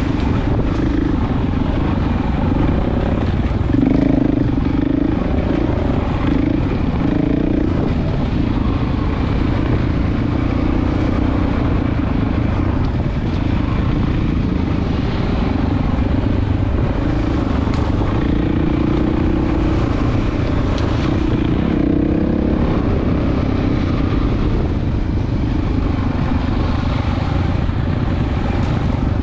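Off-road vehicle engine running continuously as it rides a dirt trail, its pitch rising and falling with the throttle.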